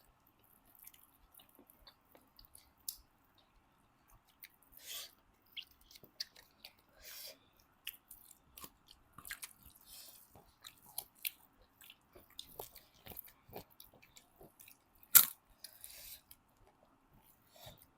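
Close-miked chewing and mouth sounds of people eating pork, with scattered wet smacks and clicks; one sharper, louder click about fifteen seconds in.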